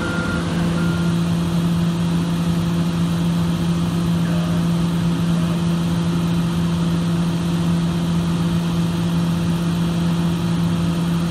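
Excavator's diesel engine running at a steady speed: a constant low drone that holds one pitch throughout.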